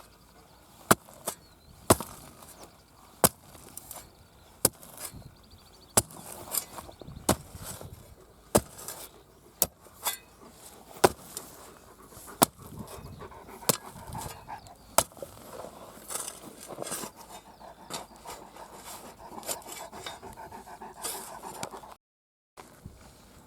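Sharp knocks or taps on a hard surface, about one a second, with scraping and rustling between them.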